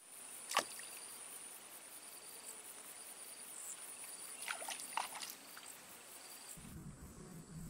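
Quiet outdoor ambience: a steady high-pitched insect drone with a few short chirps and soft ticks. Near the end it gives way to a low rumble.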